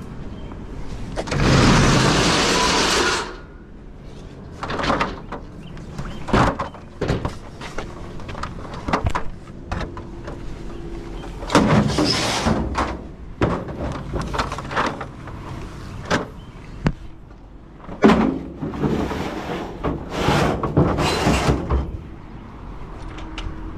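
Doors and cargo being handled: a loud sliding rush about two seconds in, followed by a string of knocks and clatters, with more sliding rushes and knocks near the middle and toward the end.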